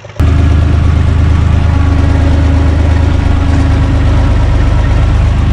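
UTB Universal 445 tractor's diesel engine running steadily under load, heard loud and close from inside the cab while it drives a rotary tiller. The sound jumps abruptly louder a fraction of a second in.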